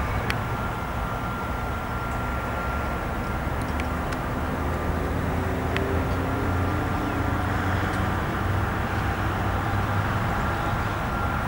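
Steady drone of a light aircraft's piston engine at a distance, with a strong low hum and a few faint tones that slowly rise in pitch.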